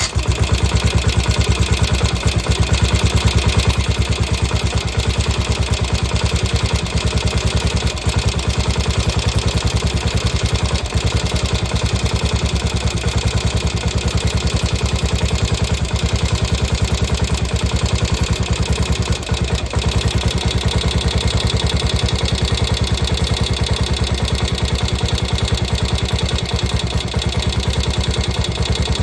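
Ducati bevel-drive engine idling steadily with even firing pulses.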